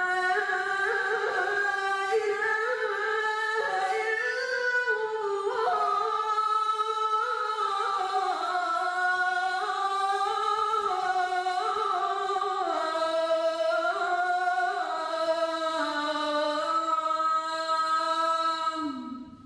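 A solo voice chanting the Islamic call to prayer (adhan), drawing out one long melismatic phrase that winds slowly up and down in pitch. Near the end the voice slides down and falls away.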